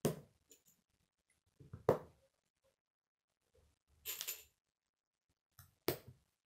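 Plastic K'nex pieces clicking and clattering as they are handled and fitted together: four sharp clicks a second or two apart, one of them a brief rattle.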